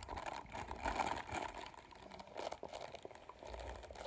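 Close-up crinkling and scratchy rustling as a textured object is rubbed against the microphone: dense crackles with no pauses.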